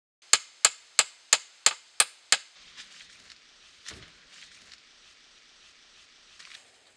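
Hammer driving a nail: seven quick, sharp strikes at about three a second, with a faint ring after them. Softer taps follow, and there is a duller thump about four seconds in.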